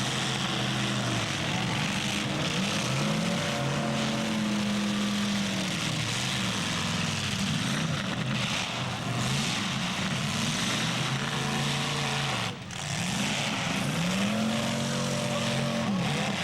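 Demolition derby car engines revving up and easing off over and over, over a steady haze of arena noise, with a brief drop in level about twelve seconds in.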